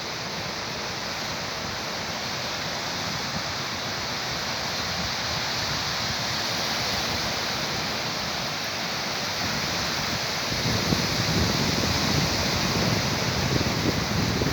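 Steady rushing noise of sea surf, with wind buffeting the microphone more strongly from about ten seconds in.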